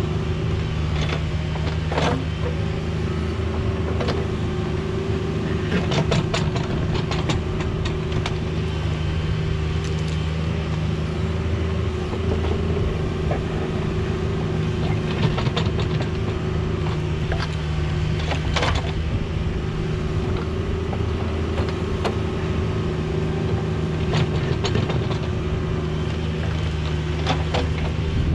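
Cat 304 mini excavator's diesel engine running steadily under digging load, with scattered knocks and scrapes from the bucket working in the trench soil.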